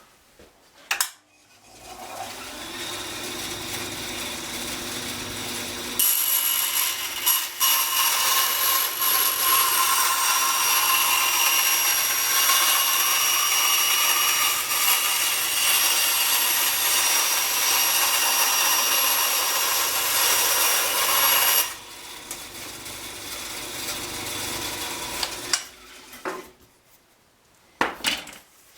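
Table saw starts up and runs, then cuts through a strip of sheet material for about fifteen seconds, louder, with a steady high whine from the blade. After the cut it runs free for a few seconds and is switched off, stopping a couple of seconds before the end.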